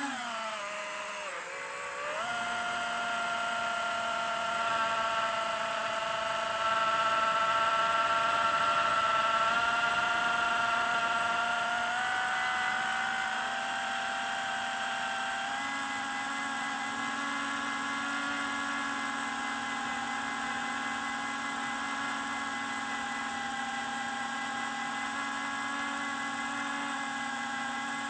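FPV quadcopter's electric motors and propellers whining in flight. The pitch dips and climbs again about two seconds in, then holds nearly steady with small step changes as the throttle shifts.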